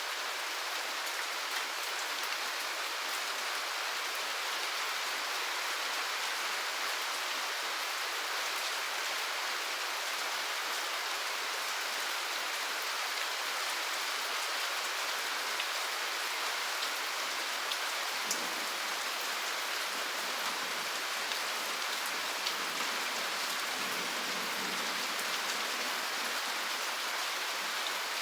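Steady rain falling, an even hiss with the ticks of individual drops.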